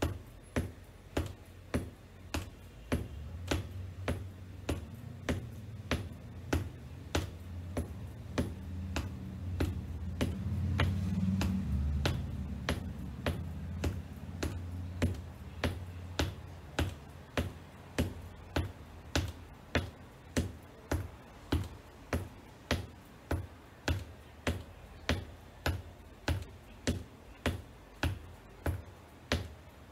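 Black wedge-heeled boots tapping on a hardwood floor in a steady, even rhythm, a little under two taps a second. A low rumble swells under the taps about three seconds in, loudest near the middle, and fades out before the last third.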